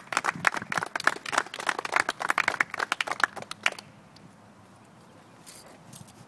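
A small group clapping after an award citation is read, with the applause stopping a little under four seconds in.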